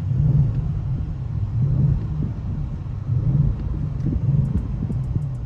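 Audi RS7's 4.0-litre twin-turbo V8 running through its RS sport exhaust: a deep, low rumble that swells and eases about every second and a half.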